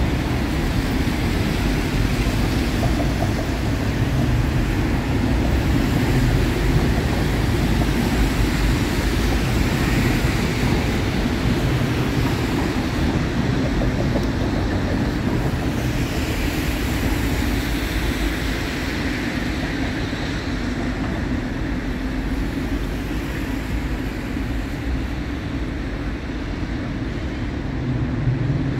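Steady city traffic noise from cars on a wet street beside a stopped light-rail tram, with a constant low hum underneath.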